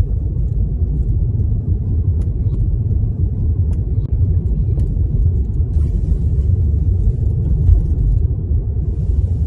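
Steady low rumble of a car driving on a snow-covered road, heard inside the cabin: engine and tyre noise, with a few faint ticks.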